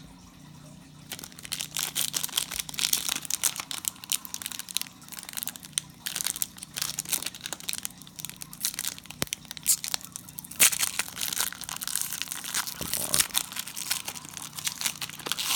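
Foil trading-card pack wrapper crinkling and tearing as it is ripped open by hand, a dense run of crackles starting about a second in.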